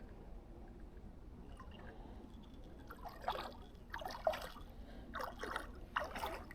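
Water splashing and dripping: a faint low rumble, then several short splashes in the second half.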